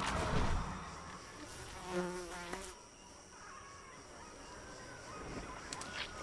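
Insect buzzing, a short pitched buzz with a fast, even flutter about two seconds in, then faint buzzing and forest ambience. A low rumble fades out within the first second.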